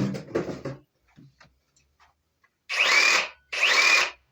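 Ridgid R8647B cordless reciprocating saw run in short trigger pulls: twice in the second half, each time its motor whine rises and then holds steady for under a second, with a third pull starting at the very end. It comes after a brief noise at the start.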